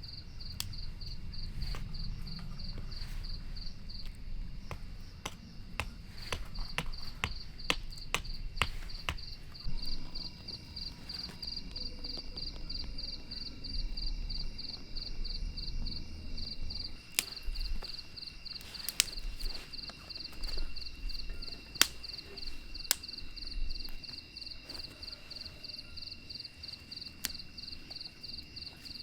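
Crickets chirping in a fast, even pulse, joined by a second insect's steady trill, over a low rumble. Scattered sharp knocks and clicks come and go throughout, the loudest a little past two-thirds of the way in.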